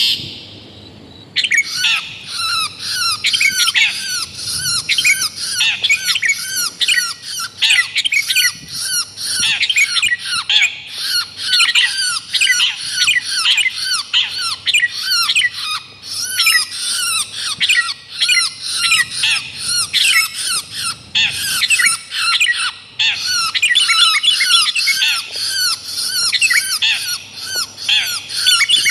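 Bird-luring recording of long-tailed shrike and sooty-headed bulbul calls mixed together: a dense, loud chatter of short, down-slurred notes, several a second, with a brief pause about a second in.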